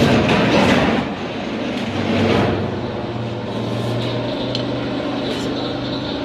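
Sheet-metal corner notching machine running with a steady low hum, with two louder noisy surges, one lasting about a second at the start and a shorter one about two seconds in.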